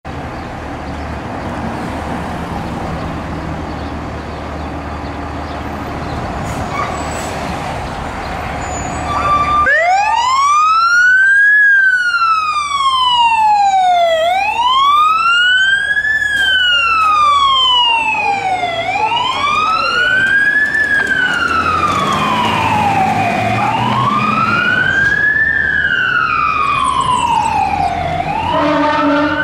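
Pierce Saber fire engine's diesel engine running for about ten seconds, then its electronic siren starts wailing in slow rising and falling sweeps, about one every four and a half seconds. Near the end a second rise-and-fall sweep overlaps the first.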